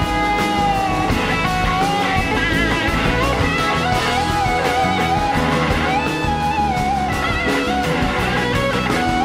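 Electric slide guitar solo on a Gibson SG: long held notes with wide vibrato that glide between pitches, over a live band's bass and drums.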